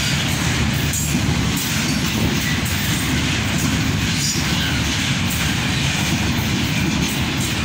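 Freight train flatcars rolling past close by: a steady rumble of steel wheels on rail, with some clickety-clack over the rail joints.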